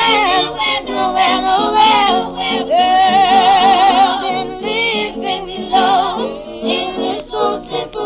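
Female gospel vocal group singing in harmony with heavy vibrato; one voice holds a long note about three seconds in.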